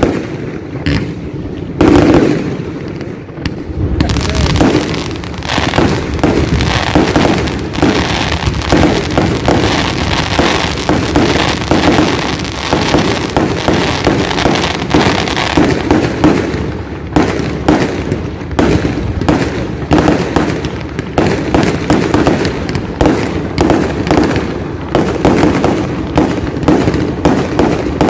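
Aerial fireworks going off in a rapid, dense barrage of bangs and crackling, several reports a second with no let-up, and a loud bang about two seconds in.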